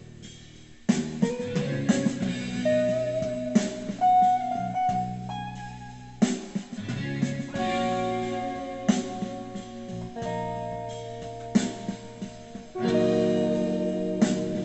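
Electric guitar playing an improvised lead of held notes over a backing track with drums, picked up by a phone's microphone.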